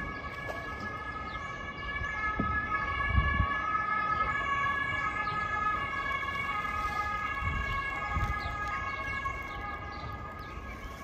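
Emergency-vehicle siren: steady held tones that seem to switch back and forth between two pitches. It swells about two seconds in and slowly fades.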